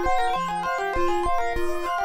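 Synthesizer arpeggio: a fast repeating run of short stepped notes, with low thumps keeping a steady beat underneath.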